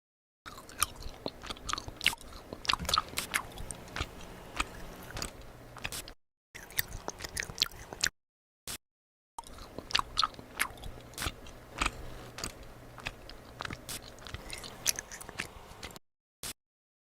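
Close-miked eating: crunchy bites and chewing with many sharp crackles, in short edited clips separated by abrupt silent cuts.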